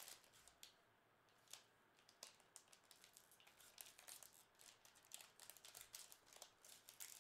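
Faint crinkling and small crackles of a foil trading card pack wrapper being torn open and handled, a scatter of short irregular clicks.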